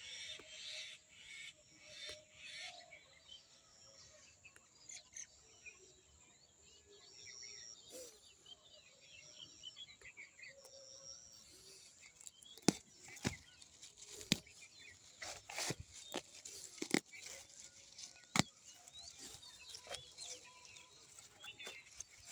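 Outdoor ambience with small birds chirping. From about halfway through, a series of sharp knocks or clicks at irregular intervals.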